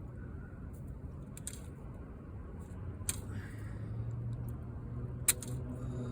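Three sharp clicks from hand work on a camper window screen, the last the loudest, over a low rumble. A low hum swells and rises slightly in pitch over the second half.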